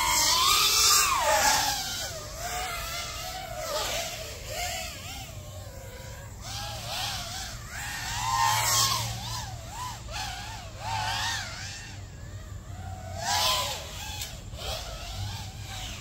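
Five-inch FPV racing drone on 6S with 2207 2070kv brushless motors flying laps, its motors and props whining with a pitch that rises and falls quickly with the throttle. It swells louder as it passes close, at the start, about eight and a half seconds in and again about thirteen and a half seconds in.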